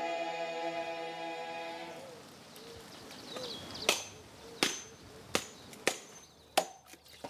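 A held chord of background music fades out about two seconds in. Then come six sharp chopping blows, about two-thirds of a second apart, from food being cut up by hand, with faint bird chirps in between.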